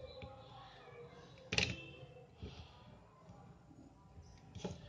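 Soldering iron and circuit board being handled, with a sharp click about one and a half seconds in and a smaller one near the end, over faint low background noise.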